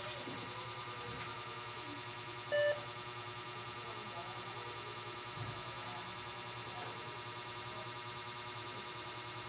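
A single short electronic beep, like a buzzer tone, about two and a half seconds in, over a steady electrical hum.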